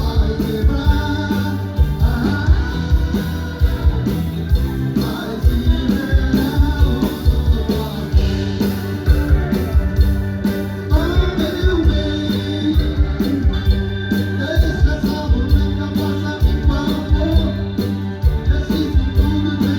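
Live band with drum kit, percussion and guitar playing an upbeat song, with a steady, driving beat and strong bass.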